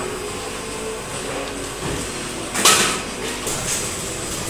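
Steady room noise, then one sharp knock with a brief scraping rush about two and a half seconds in: a large wide-format UV printer being shoved and bumped into position by hand.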